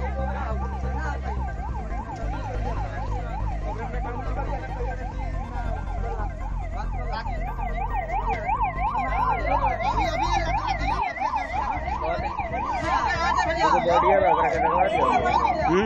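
Several emergency-vehicle sirens sounding a fast yelp, the pitch rising and falling about three times a second, overlapping and getting louder over the last few seconds. A low rumble underneath cuts off about eleven seconds in.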